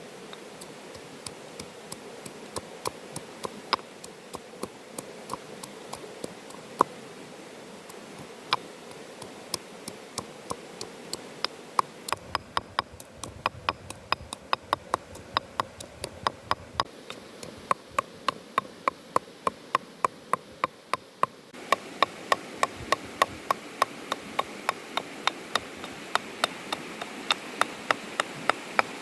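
Knife chopping on a cutting board: a run of sharp chops, sparse and uneven at first, then quicker at about two to three strokes a second, over a faint outdoor hiss.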